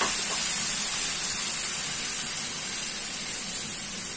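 Dabeli masala sizzling and bubbling in hot oil in a pan just after a little water is added: a steady hiss that eases slightly.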